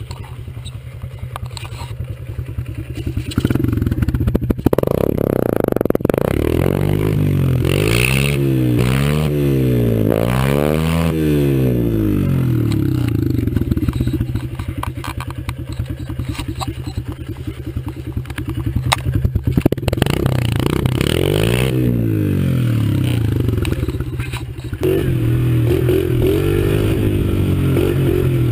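Small Honda dirt bike engine running and being revved several times, its pitch sweeping up and falling back. About 25 seconds in it gets steadily louder as the bike is ridden off.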